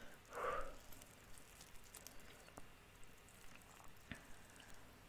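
Faint crackle and small ticks of a crispy fried chicken wing being pulled apart with the fingers, with one brief soft sound about half a second in.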